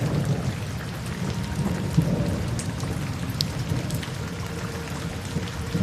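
Steady rain with a continuous low rumble of thunder, and individual drops ticking sharply here and there.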